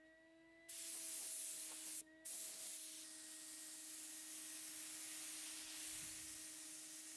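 Spray gun with a siphon-feed cup spraying primer, a hiss of air and paint each time the trigger is pulled: one short spray about a second in, a brief break, then a long pass of several seconds. A steady hum runs underneath throughout.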